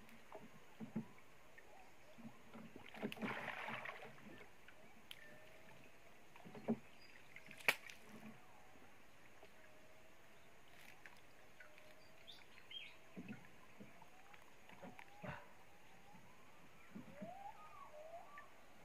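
Water splashing and sloshing beside a wooden canoe as a landing net is worked over the side, with a burst of splashing about three seconds in and two sharp knocks against the boat a second apart near the middle. Faint short chirps come and go.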